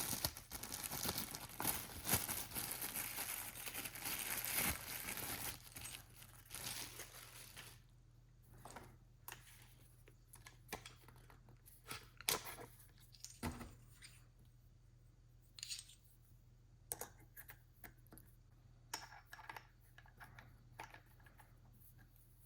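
Packaging crinkling and tearing for about eight seconds, then scattered light clicks and taps as items are handled.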